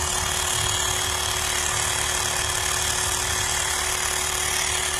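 Mi portable electric tyre inflator running steadily with an even hum, pumping air into a flat car tyre that has just been repaired with a plug strip.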